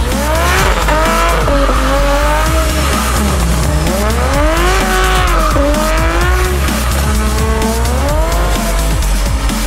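Turbocharged inline-six of a fourth-generation Toyota Supra revving up and falling back several times while its rear tyres spin and squeal in a smoky burnout.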